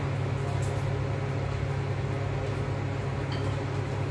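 A steady low machine hum, with a few faint light clicks.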